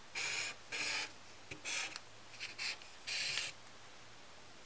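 Felt-tip marker drawing lines on paper: about five short scratchy strokes in quick succession, stopping about three and a half seconds in.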